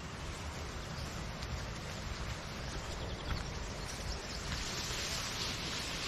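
Steady rushing of a nearby river: an even, hiss-like water noise with no break.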